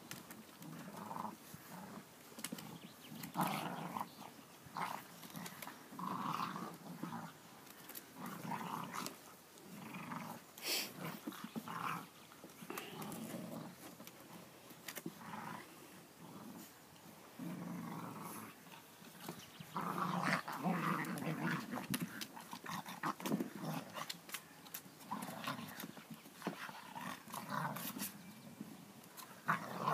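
Continental Bulldog puppies growling in play, in short irregular bursts as they wrestle, with a single sharp click about eleven seconds in.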